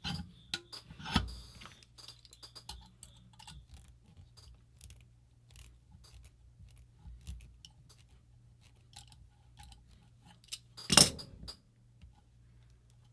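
Scattered clicks and clinks of small metal parts and tools being handled while working a stuck part loose on a paintball marker, with a louder knock about a second in and a sharper, loud knock near eleven seconds.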